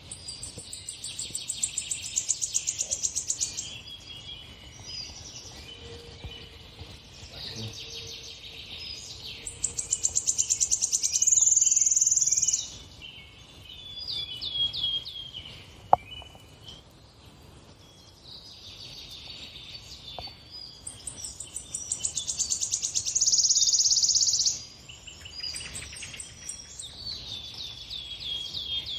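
Songbird song played from a TV: three long, fast, high trills, each swelling louder over a few seconds, with short runs of high falling notes between them. A single sharp click sounds about halfway through.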